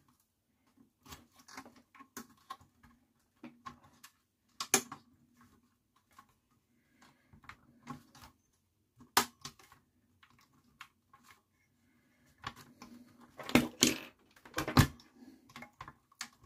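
Irregular clicks and knocks of amplifier parts being handled and fitted back together by hand, with quiet gaps between; the sharpest knocks come about nine seconds in and in a cluster near fourteen to fifteen seconds.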